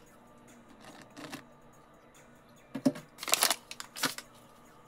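Flour poured from a cup into a stainless steel mixing bowl: a few short, dry swishes, most of them about three to four seconds in, the first with a soft knock.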